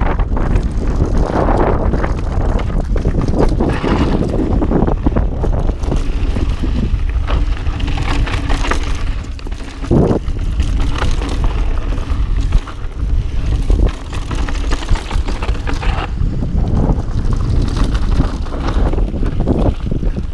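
Wind buffeting a helmet-mounted action camera's microphone as a Mondraker mountain bike rides downhill on a dry dirt trail, with tyre noise and the bike rattling and knocking over bumps.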